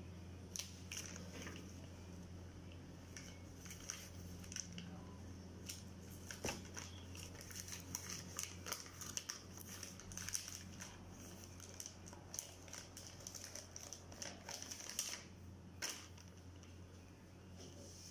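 Thin lumpia wrappers being peeled apart by hand from a stack, giving soft, quick papery crinkles and ticks that come thickest in the middle.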